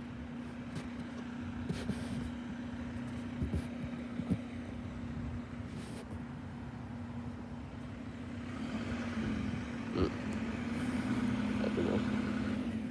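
Yard waste collection truck's engine running with a steady hum, growing louder from about two-thirds of the way in as the truck approaches, with a few short sharp knocks.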